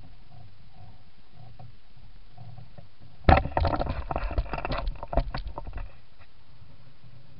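Aboard a small sailboat underway: a steady low background noise, then, about three seconds in, a loud burst of knocking and rattling that lasts about two and a half seconds before dying back.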